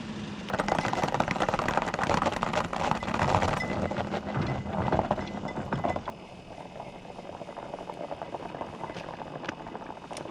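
A motor vehicle's engine running as it pulls away, loud and rough for about six seconds, then dropping off sharply to a quieter background.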